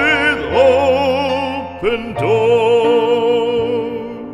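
Background music: a classical song, with a trained voice holding long notes with vibrato over instrumental accompaniment.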